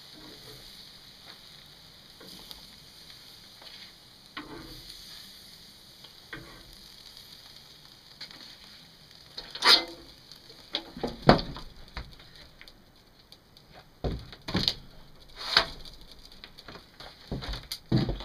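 Meat sizzling on a charcoal grill grate, a faint steady hiss. From about halfway on come several sharp metal clanks and knocks as the venison is lifted off and the grill lid is shut.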